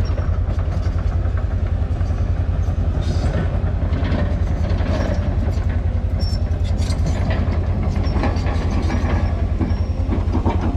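Heavy diesel excavator working close by, its engine running with a steady low, fast-pulsing rumble, with metal clanks and short squeals from the tracks and arm.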